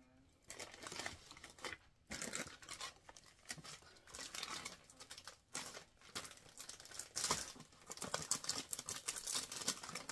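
Plastic candy packaging crinkling and rustling as it is handled, with many irregular sharp crackles.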